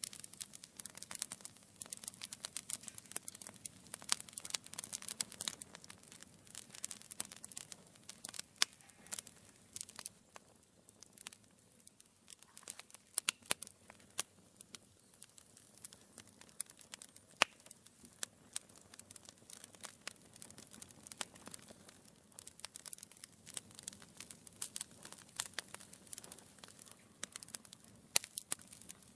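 Wood fire burning in a fireplace, crackling steadily with irregular small snaps and a few louder single pops.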